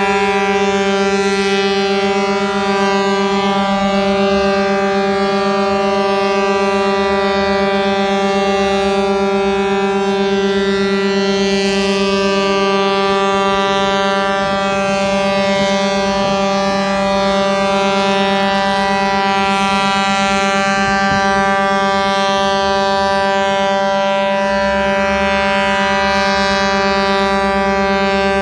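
Ship's horn sounding one long, unbroken low blast on a single steady note.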